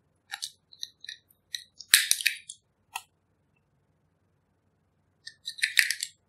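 Quick plastic clicks and ticks of a lip gloss tube being handled, its wand applicator worked in and out of the tube, in a busy cluster about two seconds in and another near the end.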